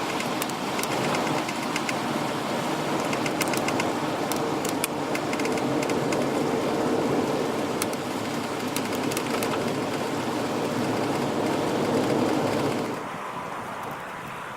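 Car running on a snow-covered highway, heard from inside: a steady rumble of tyres and engine with scattered sharp ticks. About 13 seconds in it drops to a quieter, even hiss.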